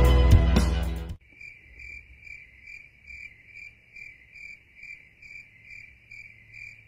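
Background music cuts off abruptly about a second in. Then a cricket chirps steadily and faintly, about two to three chirps a second.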